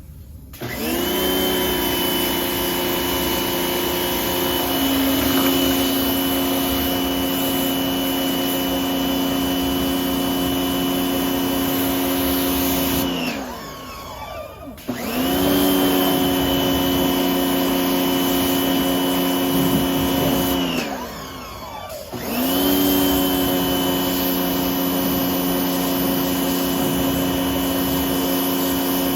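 Bauer electric pressure washer running while spraying through a 40-degree nozzle: a steady motor-and-pump whine with a high hiss of water. It shuts off twice, winding down in pitch each time, as the trigger is released, and starts up again a second or two later.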